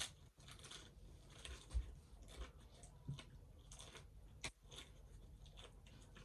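Hard-shell taco being bitten and chewed: a string of short, irregular crunches.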